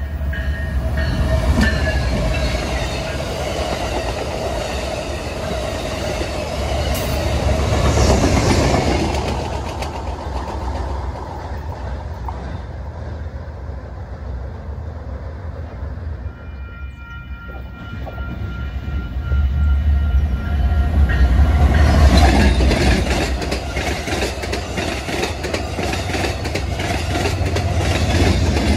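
A train running past: a heavy low rumble that swells twice, about eight seconds in and again around twenty-two seconds, with wheels clattering over the rails.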